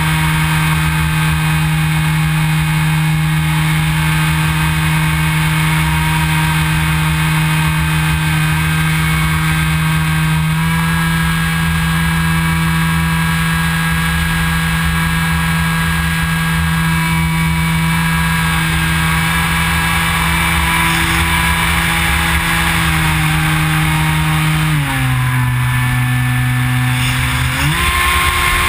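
Motor and propeller of an EPP foam FPV model plane, heard from the GoPro mounted on it, running as a steady droning hum with wind rushing past. The pitch steps up slightly about a third of the way in, drops as the throttle is eased back near the end, and climbs again just before the end.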